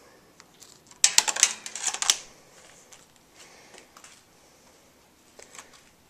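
Metal-framed electronic air cleaner filters being handled and set down. About a second in there is a quick cluster of sharp metallic clicks and rattles lasting about a second, then a few faint clicks.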